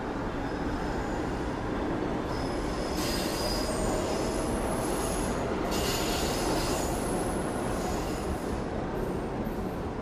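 New York subway train's wheels squealing on the rails in several high, shifting tones over a steady low rumble. The squeal comes in a couple of seconds in, is strongest around the middle, and comes and goes near the end.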